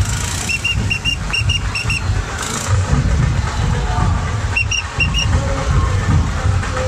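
Loud street-procession din with a heavy low rumble, cut by two runs of short, high whistle toots: about eight quick blasts in the first two seconds and four more about five seconds in.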